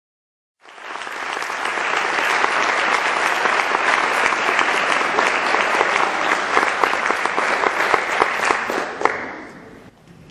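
Audience applauding. The applause starts suddenly about half a second in and fades away near the end.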